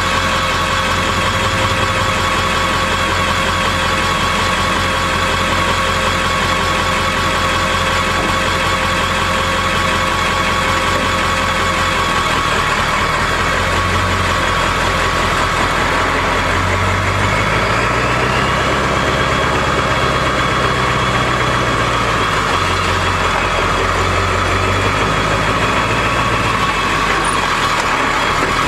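Ford F-250's Powerstroke V8 turbodiesel running, heard from beneath the truck: a steady idle through the first half, then the engine note rising and falling for several seconds past the middle as the throttle is worked.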